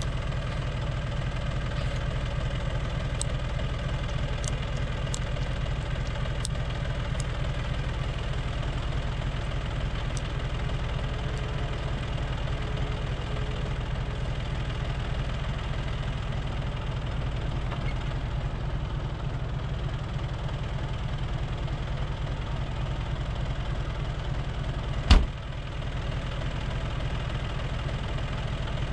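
Farm tractor's diesel engine idling steadily, with one sharp knock near the end.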